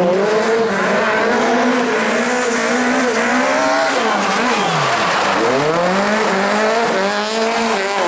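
Peugeot 208 rally car's engine running hard on a gravel stage, its note stepping up and down through gear changes. About four seconds in the pitch falls steeply as the car brakes and shifts down, then it climbs again from about five and a half seconds as the car accelerates away.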